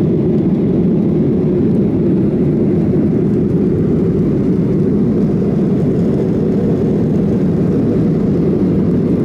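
Boeing 737-800 jet engine noise: a steady low rumble that holds one level throughout.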